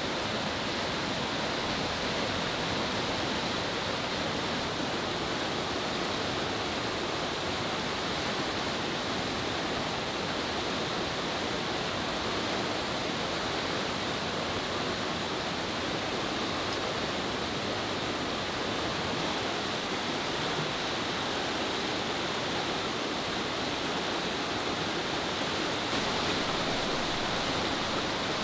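Fast-flowing river rushing steadily over rapids, an even noise of water with no breaks.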